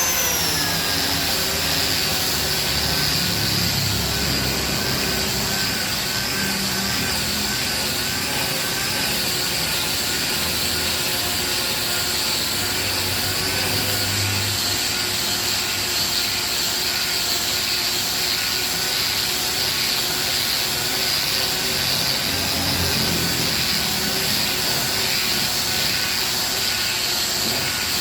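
Hand-held angle grinder sanding a solid-wood chair seat: a steady high whine over a constant gritty hiss, settling to full speed just after the start, with a lower rumble swelling a few times as the disc is pressed into the wood.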